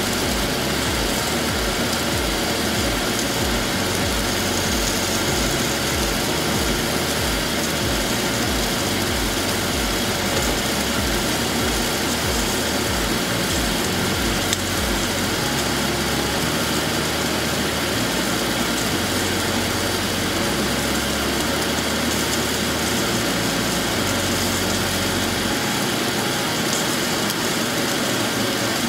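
A double-bone lamb chop searing in hot oil in a small nonstick frying pan: a steady sizzle. Beneath it runs a steady mechanical hum.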